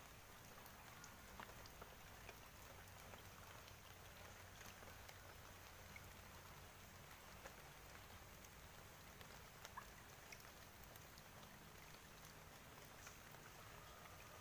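Near silence: a faint steady outdoor hiss with a few small, soft ticks scattered through it.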